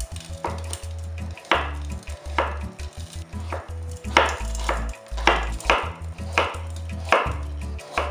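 Chef's knife slicing through a raw carrot and striking a wooden cutting board: about a dozen sharp chops at an uneven pace.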